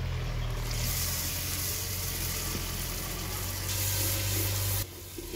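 A little water poured into hot oil and frying onion-spice masala in a clay handi, hissing and sizzling hard, while a wooden spoon stirs it. The sizzle stops abruptly near the end.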